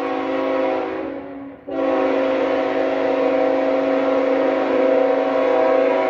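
Locomotive air horn sounding a chord of several steady tones. It fades and cuts out briefly about a second and a half in, then comes back in a long, loud blast.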